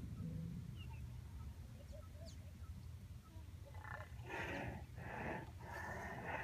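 White rhinoceros calling: about four seconds in, four short, breathy calls in close succession.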